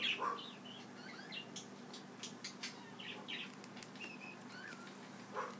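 Faint chirping of small birds, many short calls scattered throughout, with soft rustles and clicks of the satin ribbon and thread being handled as a petal is stitched.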